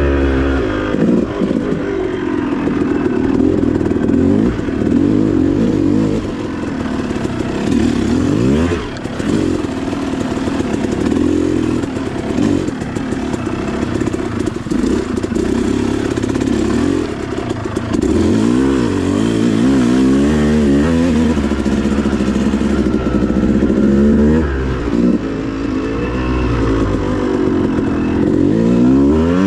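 250cc two-stroke motocross bike being ridden around a dirt track, the engine revving up and dropping off again and again, with quick climbs in pitch as it accelerates and falls as the throttle closes.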